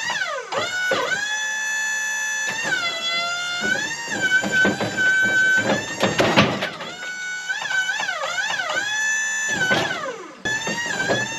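Hydraulic system of a Wood-Mizer LT35 portable sawmill whining as its log turner flips a log. The pitch sags and recovers as the load changes, and a clatter of knocks comes about six seconds in.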